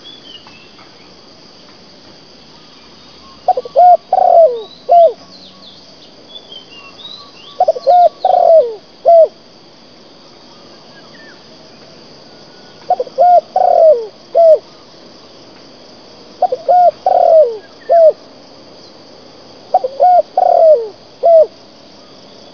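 A dove cooing in five phrases a few seconds apart. Each phrase has two short coos, a longer falling coo and a final short coo. Behind it is a steady high insect buzz, with a few thin bird chirps in the first several seconds.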